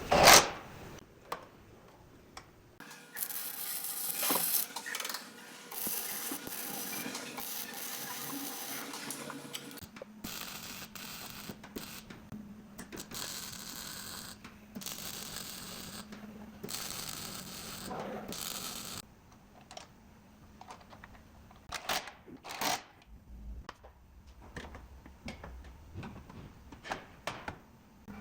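Irregular mechanical clicks, knocks and ratcheting rattles of tools on metal parts. Stretches of steady noise run through the first two-thirds, and sharper, scattered clicks follow near the end.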